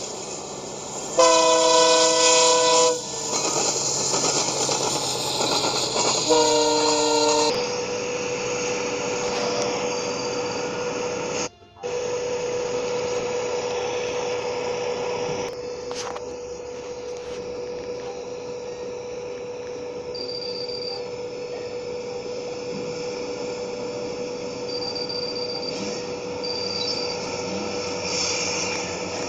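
Locomotive multi-chime air horn sounding two blasts, a long one of about two seconds and then a shorter one, each a chord of several steady tones. After that a steady single-tone hum runs over outdoor rumble.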